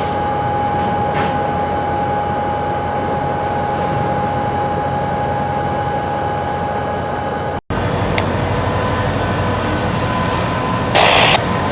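Train running in a rail yard: a steady rumble carrying a steady high-pitched whine. The sound drops out for an instant about two-thirds through, then the rumble carries on.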